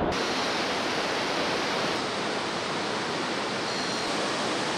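Steady rushing hiss of the Bhote Koshi river's whitewater rapids in the gorge below.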